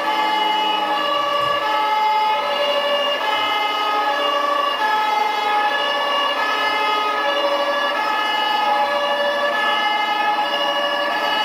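German two-tone fire engine siren sounding from a model fire truck, alternating evenly between a high and a low pitch.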